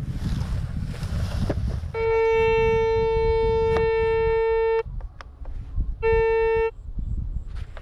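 Handheld metal detector sounding a steady buzzing tone for about three seconds, then a shorter burst of under a second about a second later, as the coil passes over a spot in the grass: the detector's signal for metal in the ground. Wind rumble on the microphone underneath.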